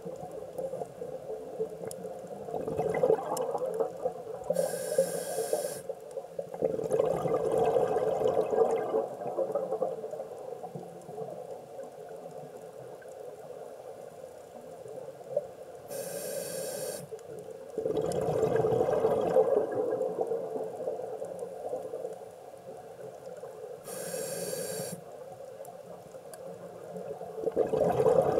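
Scuba diver breathing through a regulator, heard underwater: long stretches of rushing, bubbling exhaled air, with three short high-pitched hisses of inhalation.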